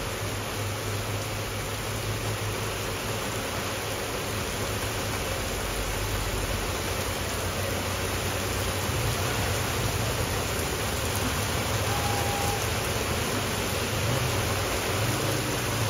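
Rain falling steadily on wet pavement and puddles: an even hiss of drops splashing, getting a little louder about halfway through.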